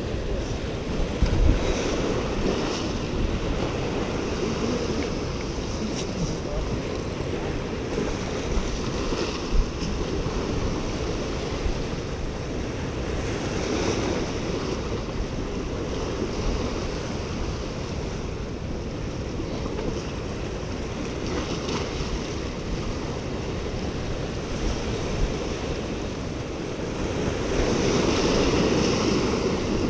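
Ocean surf washing and breaking against the rocks of a granite jetty, with wind buffeting the microphone. A bigger wave breaks louder near the end.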